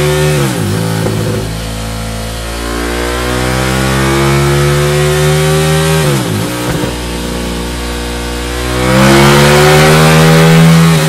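Exhaust note of a KTM 1290 Super Duke GT's V-twin through a MIVV Delta Race slip-on silencer, revving. The revs climb slowly, drop sharply about half a second in and again about six seconds in, then jump to a loud held high-rev note about nine seconds in.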